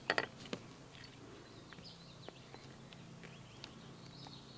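A few quick clicks and rattles of a GoPro clamp mount being handled and screwed onto a tether rope, in the first half-second. After that only faint bird chirps remain.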